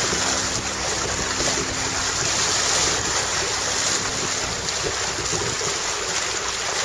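Steady rushing of wind and sea water on a sailing trimaran, with wind buffeting the microphone. A faint low hum underneath fades out about five seconds in.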